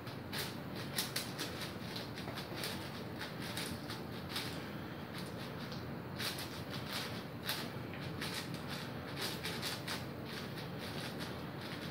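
Cubicle Magnetic WuShuang 5x5 speedcube being turned very fast by hand: a dense run of quick plastic clicks and clacks in uneven flurries as its layers snap into place.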